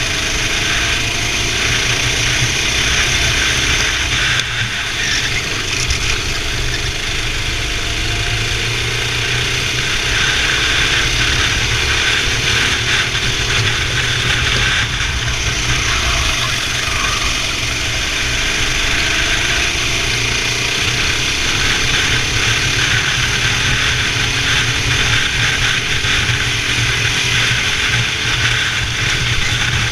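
Racing kart engine running hard, its revs rising and falling again and again as the kart accelerates and slows lap after lap.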